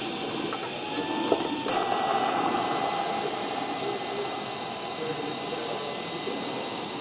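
TIG welding arc from a Miller Dynasty 200DX on DC straight polarity at about 125–130 amps, laying the root pass on a 4130 chrome moly pipe saddle joint. A steady hiss with a faint hum, which sets in sharply about two seconds in and then holds steady.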